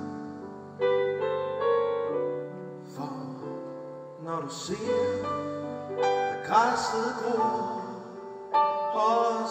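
Piano playing slow, held chords in a live ballad accompaniment, a new chord struck about every two to three seconds.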